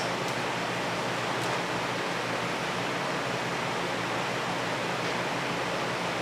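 Steady, even hiss, with a couple of faint light clicks in the first second and a half.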